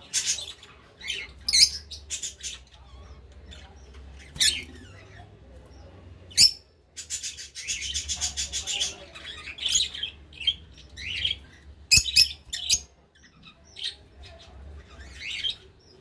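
Fischer's lovebirds calling in short, sharp, high-pitched chirps and squawks, with a stretch of rapid chattering near the middle.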